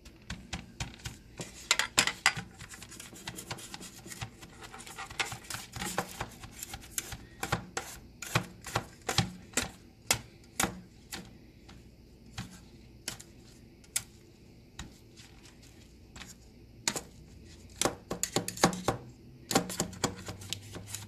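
A drinking glass pressing and tamping graham cracker crumbs into a cheesecake pan: irregular sharp taps and clicks of the glass against the crumbs and the pan, coming in clusters with short pauses between.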